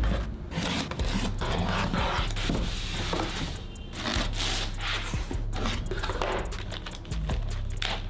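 Irregular rubbing and scraping noises, coming in short bursts, over a low steady hum.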